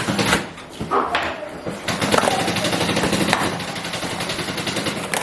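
A couple of knocks, then a small electric motor running steadily for about three seconds, typical of a power tool driving screws during furniture assembly.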